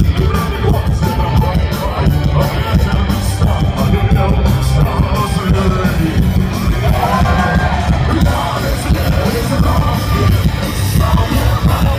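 Live punk rock band playing loud, with heavy bass and shouted, sung vocals.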